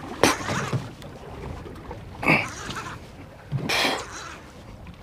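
Short rushing bursts about every second and a half, in time with the jerking strokes of an angler working a jig with a rod and reel, over steady wind and water noise.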